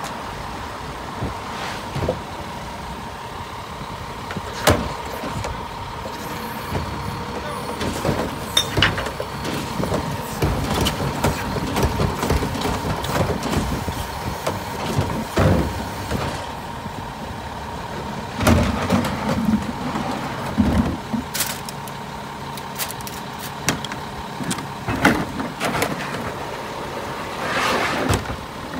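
Rear-loader garbage truck running with a steady whine while its cart tipper lifts and dumps wheeled trash carts into the hopper, with repeated bangs and clatters of plastic carts and lids against the truck.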